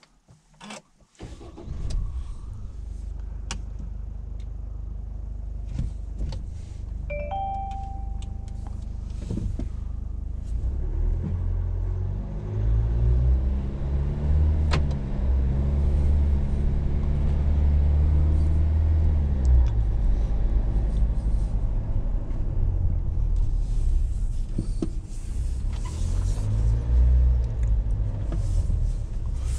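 GWM Cannon XSR's 2-litre four-cylinder turbo diesel starting about a second in and running, heard from inside the cab, with a short run of electronic dashboard chimes a few seconds later. The ute then pulls away, the engine note rising and falling repeatedly as it accelerates.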